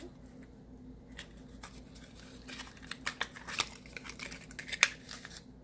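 Faint handling noise: light rustling and scattered small clicks as a small glass cuticle-oil bottle and its little cardboard box are handled. One sharper click comes near the end.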